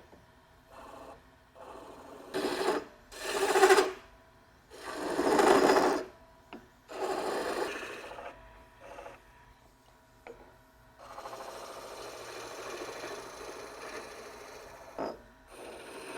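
Wood lathe running with a faint steady hum while a turning tool cuts the spinning spindle in a string of bursts about a second long, the loudest about three and a half and five and a half seconds in. In the last few seconds the cutting turns lighter and more even.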